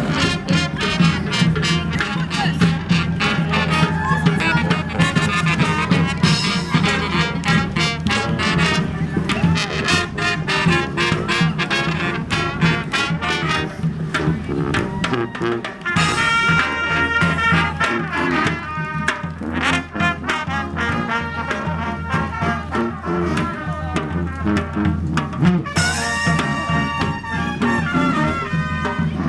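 Street brass band playing an upbeat tune: trumpets and trombones over steady drum strokes, with long held horn notes about halfway through and again near the end.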